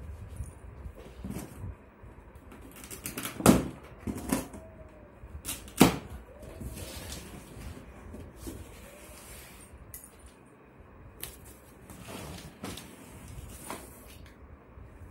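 The two plastic packing straps on a cardboard box giving way, a sharp snap about three and a half seconds in and another about two seconds later, then the cardboard box being shifted and turned over on a wooden floor with light knocks and scrapes.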